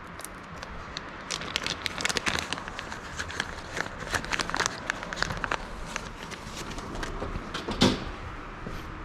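A series of irregular clicks and light knocks over a faint low steady hum, with a stronger knock near the end.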